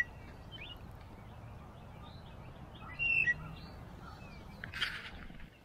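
A songbird singing two short, bright phrases, one at the start and another about three seconds in. Near the end comes a brief scratchy rustle of a hand rubbing on the action camera.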